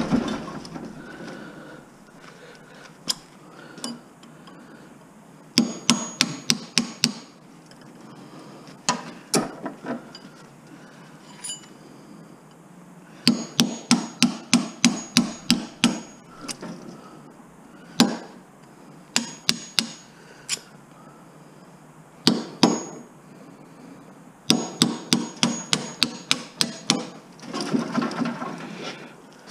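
Hammer striking a steel punch to drive the copper windings out of an electric motor stator: quick runs of sharp metal-on-metal blows, about six a second, with single blows in between.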